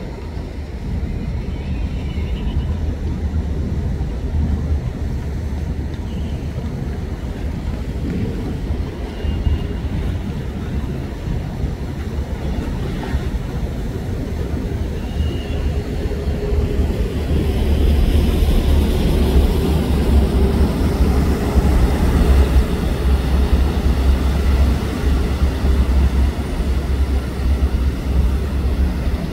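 Steady low rumble of high-speed catamaran ferry engines and churning water, with wind on the microphone, growing louder a little over halfway through.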